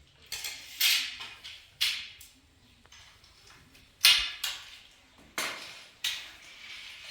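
A series of sharp clatters and knocks of hard objects, about eight spread unevenly over seven seconds, each dying away quickly.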